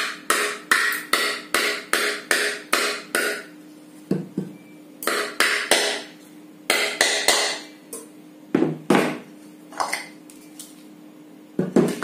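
Hammer tapping a new ball bearing into the metal top cover of a ceiling fan motor to seat it in its housing. It starts as a quick even run of about eight taps, then goes on as slower, irregular taps.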